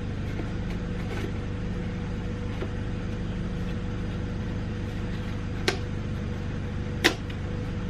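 Steady mechanical hum with two sharp clicks about a second and a half apart near the end, as tools are handled in a tool box drawer.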